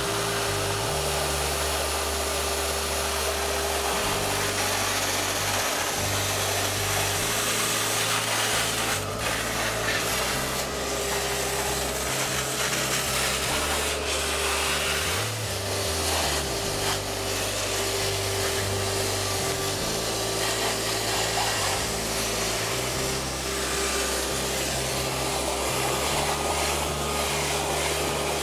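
Shop vac running steadily with a constant motor whine, its hose nozzle sucking up water and grit slurry from the pan of a vibrating glass lap.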